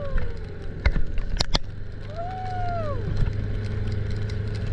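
Small dinghy outboard motor running steadily, with a few sharp knocks about a second in and a high pitched whine that rises and falls once near the middle.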